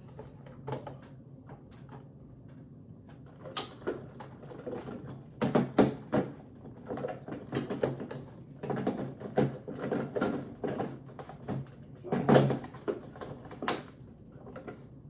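Scattered clicks, taps and knocks of a blender jar being handled on a countertop, with louder clatter about five and a half seconds in and again about twelve seconds in. The blender motor is not running.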